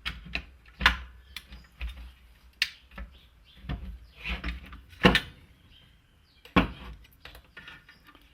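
Irregular clicks and knocks of an air framing nailer's small parts being handled and fitted by hand, with sharper knocks about a second in, near five seconds and about six and a half seconds in.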